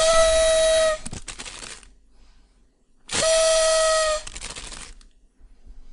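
A whistle sound effect, a steady, breathy tone blown twice, each blast about a second long and dipping slightly in pitch as it cuts off, followed by a short fading tail; the second blast comes about three seconds after the first.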